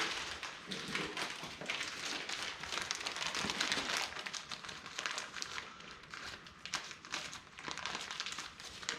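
Plastic crinkling and rustling with many quick, irregular clicks, from zip ties being handled.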